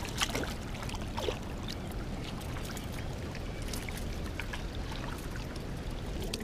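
Shallow river water lapping against the rocks at the edge, over a steady low rush of wind on the microphone, with a few sharp small clicks in the first second and a half.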